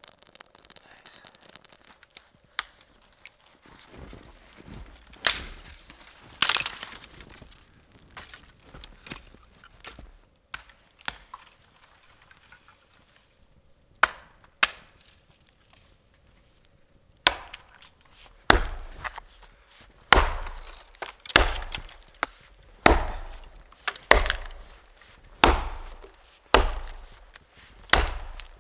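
Wood being chopped: a few scattered blows at first, then from a little past halfway a steady run of strokes about one every second and a half.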